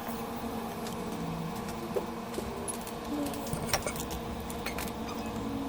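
Steady hum and fan-like hiss of electronics repair bench equipment, with a few light clicks and taps of small tools.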